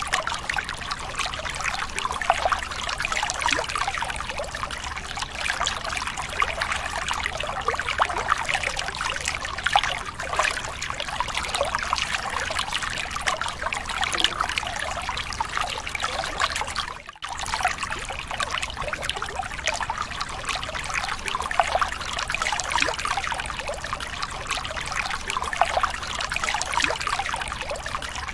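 Large concert crowd in a stadium cheering and screaming without a break, a dense wash of many voices, with a sudden brief dropout about seventeen seconds in.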